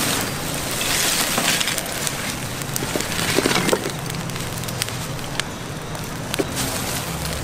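Sounds of a street-food stall: scattered sharp clicks and crackles over a steady background of noise and a low hum.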